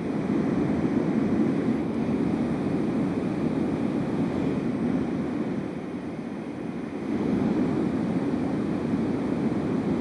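LectroFan noise machine playing a steady, deep rushing noise more like brown noise than white. It is held close to a microphone and moved around it, so the level sags for a couple of seconds in the middle and comes back up as it changes sides.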